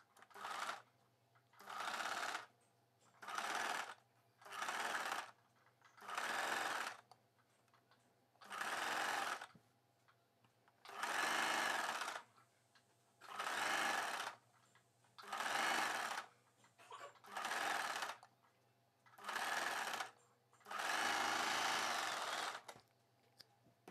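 Electric home sewing machine stitching in short stop-start runs: about a dozen spurts of a second or so each, with pauses between them, as a folded strip is sewn on along a neckline.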